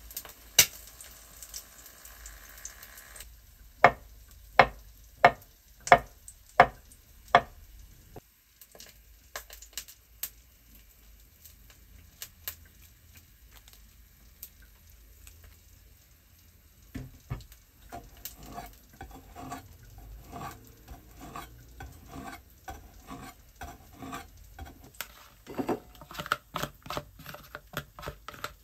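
Kitchen food-prep handling on a wooden cutting board: six sharp, evenly spaced taps a few seconds in, then a stretch of small soft clicks and taps as a spoiled, browned avocado is peeled by hand, ending with cooked rice tipped out of a plastic container into a bowl.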